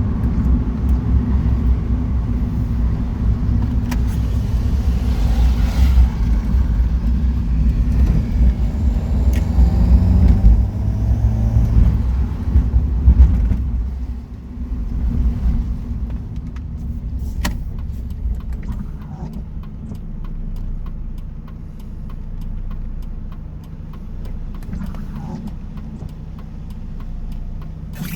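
NA Mazda Miata under way: engine and road noise, heavy and uneven for about the first half, loudest just before the midpoint, then quieter and steadier as the car eases off.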